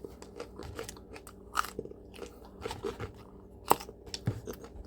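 Raw habanero peppers being bitten and chewed: a string of irregular wet crunches and clicks, with one loud crunch about three-quarters of the way through.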